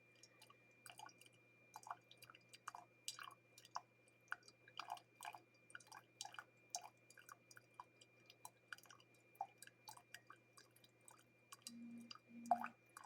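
Faint, irregular small clicks and ticks, with two brief low hums near the end.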